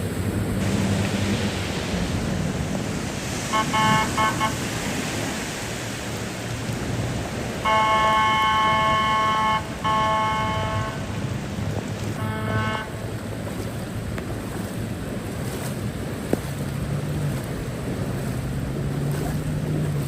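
A car horn honking: a burst of quick toots, then two long blasts back to back and a short final honk, over a steady rushing background noise and a low hum.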